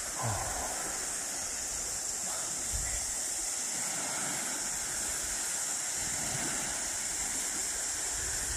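Small waves washing on a sandy beach, a steady hiss, with wind now and then buffeting the microphone.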